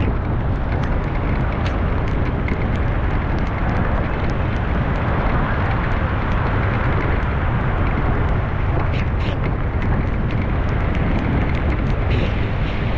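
Steady street traffic noise with a low rumble, with scattered light clicks and ticks on top.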